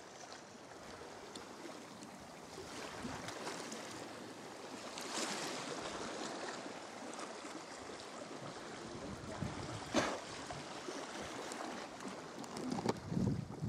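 Sea kayak being paddled on choppy sea water: paddle blades dipping and splashing with water slapping along the hull. A single sharp knock about ten seconds in, and low buffeting thumps near the end.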